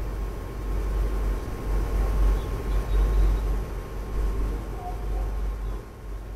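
Storm wind buffeting an outdoor microphone: a low, uneven rumble that rises and falls in gusts.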